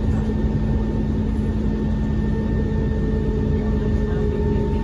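Cabin noise of a Kawasaki Heavy Industries C151 MRT train running between stations: a steady rumble of the wheels on the track with a steady hum, and a fainter tone that sinks slightly in pitch in the second half.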